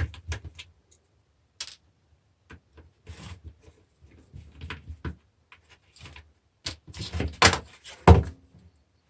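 Scattered clicks and knocks of hand tools and small metal parts being handled on a workbench as screws are undone on a car battery charger, with two louder knocks about seven and a half and eight seconds in.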